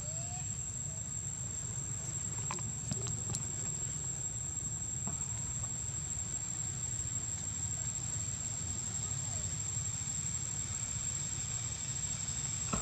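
Outdoor ambience: a steady low rumble under a steady high-pitched insect drone, with a few faint short squeaks from the nursing macaques and a couple of faint clicks.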